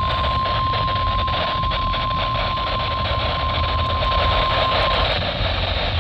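NOAA Weather Radio's steady single-pitch warning alarm tone, about 1050 Hz, sounding over a hissy radio signal during the Required Weekly Test; it cuts off about five seconds in. A low rumble runs underneath.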